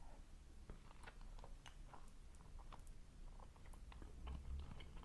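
A person chewing food close to the microphone: faint, irregular mouth clicks, several a second.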